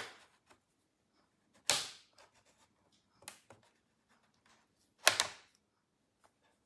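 Plastic retaining clips of the MSI Vector 16 HX AI laptop's bottom cover snapping loose as a plastic pry pick works along the side seam: three sharp snaps, at the start, after about two seconds and after about five, with a fainter click in between.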